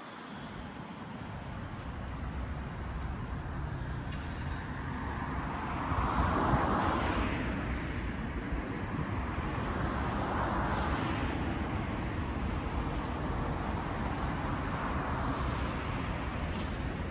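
Road traffic: a steady wash of tyre and engine noise, with cars passing close about six seconds in and again about ten seconds in, and a fainter pass near the end.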